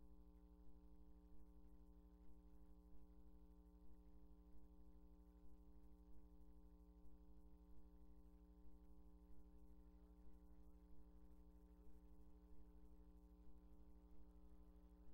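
Near silence with a faint steady hum of several tones.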